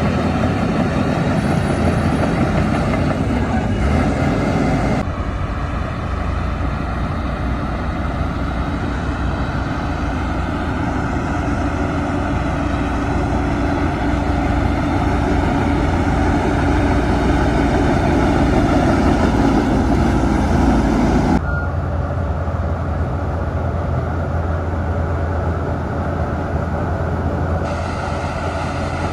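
Heavy diesel earthmoving machinery running, the engines of a bulldozer and dump trucks, as a steady low engine drone. The sound shifts abruptly about five seconds in and again about twenty-one seconds in.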